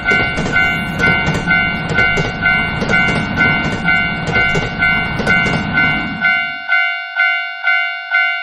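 Japanese railroad crossing warning bell clanging about twice a second, while a passing train rumbles and clatters over the rails. The train noise ends about six and a half seconds in, leaving the bell ringing alone.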